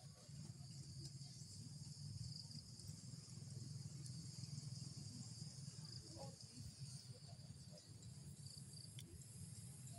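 Faint, steady chirring of insects in the background over a low, steady rumble.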